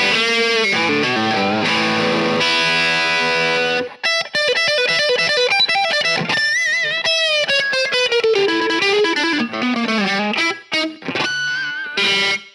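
Epiphone Flying V electric guitar through a Marshall SC20H amp on a crunch tone. It plays ringing chords for about four seconds, then a single-note lick with string bends and vibrato.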